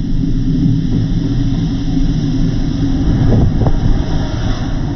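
Diesel locomotive passing close by: its engine's deep, steady rumble. In the second half the hiss of wheels on rail grows as the bogie rolls past, with a couple of brief rising screeches around the middle.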